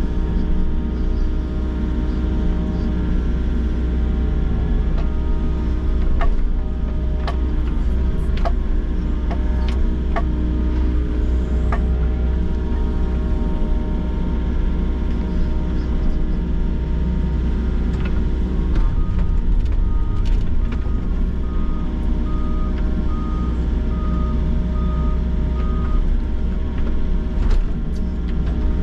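Volvo excavator's engine and hydraulics running under load from inside the cab while digging, a steady heavy rumble with hydraulic whine and some sharp knocks in the first half. Partway through, a steady series of beeps at one pitch, a little over one a second, sounds for several seconds.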